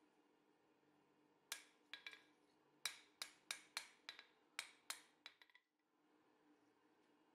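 Hand hammer striking a steel scroll on the anvil, shaping the curl: about a dozen sharp, ringing metal-on-metal blows in quick, uneven groups, starting about a second and a half in and stopping about five and a half seconds in.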